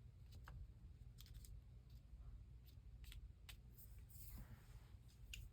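Faint, scattered clicks and a soft rustle of paper being handled: small paper cut-outs being positioned and pressed down, with a low steady room hum underneath.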